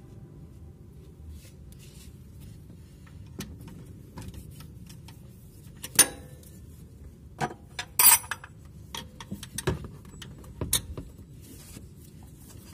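Scattered metallic clinks and knocks of a socket wrench on a long extension against engine parts as it is fitted to the bolts of the automatic drive-belt tensioner; the two loudest knocks come about six and eight seconds in.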